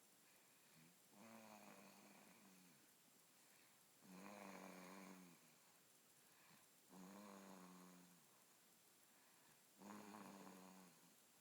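Steady, rhythmic snoring: about four pitched snores, each roughly a second long, coming about every three seconds.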